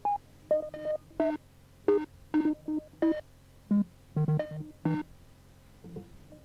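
Short, separate synthesizer notes at a few recurring pitches, played in a sparse, uneven pattern: a stripped-down passage of electronic dance music heard over an FM pirate radio broadcast. The notes stop near the end.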